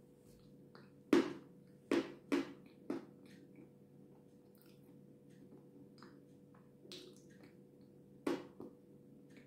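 Close-mouthed chewing of a creamy cake, with sharp wet mouth clicks: a loud one about a second in, three more over the next two seconds, and another near the end.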